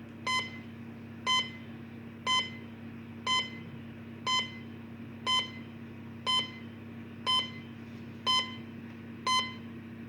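Short, high electronic beep repeating steadily once a second, the heart-monitor or bomb-timer tick, over a constant low hum; ten identical beeps.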